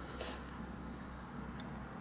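A small toy-car part and a screwdriver being handled on a cutting mat: one short scrape-like click about a quarter second in, then faint handling noise over a low steady hum.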